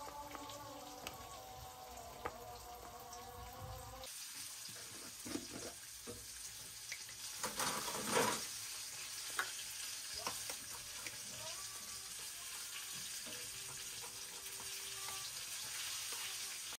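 Light clicks and knocks of clear plastic food tubs and a metal spoon being handled over a steady hiss, with a few louder clatters in the middle. Soft steady tones sound for the first few seconds and cut off suddenly.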